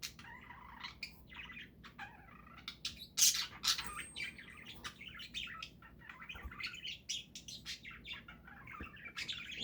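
Several small pet parrots chattering: a continuous run of quick chirps and warbling notes, with one louder call about three seconds in.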